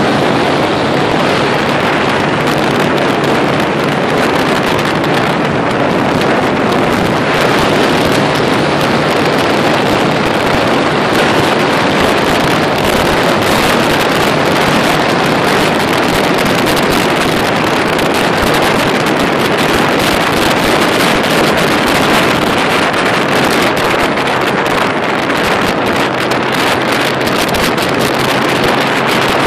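Wind rushing over the microphone of a motorcycle at motorway speed, mixed with the bike's engine and tyre noise: a steady, loud rush with no break.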